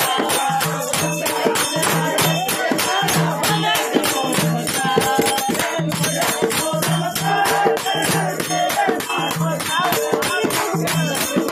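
Percussion beaten fast and steadily at about six strikes a second, with a jingling, rattling edge and a recurring deep drum pulse.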